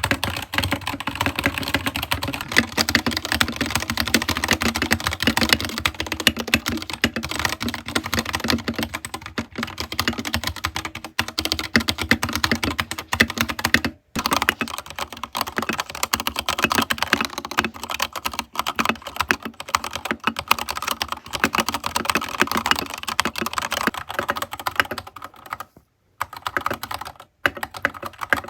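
Gamakay TK68 mechanical keyboard being typed on in a rapid, continuous stream of key clicks. The typing breaks off briefly about halfway through and pauses twice near the end.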